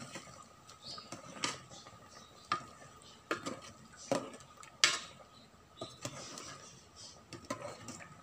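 Metal ladle stirring chicken curry in a rice cooker's metal inner pot, clinking and scraping against the pot in irregular knocks about once a second, the loudest about five seconds in.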